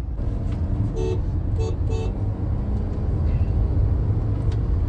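Steady low rumble of a Toyota Innova Hycross cruising at about 70 km/h in sixth gear, heard inside the cabin: its 2-litre petrol engine is running at around 2100 rpm, mixed with tyre and road noise. A few brief faint tones come about one to two seconds in.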